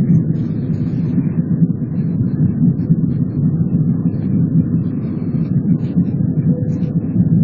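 Airliner's jet engines running at takeoff power, a steady, deep rumble heard inside the passenger cabin as the plane lifts off and climbs.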